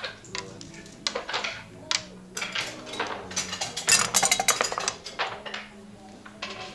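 Backgammon checkers clicking as they are moved on the board, then a pair of dice thrown and clattering across it about four seconds in.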